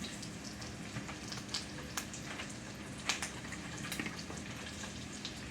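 Sliced smoked sausage sizzling gently in butter in a cast iron skillet, a low steady frying hiss with scattered small pops and crackles.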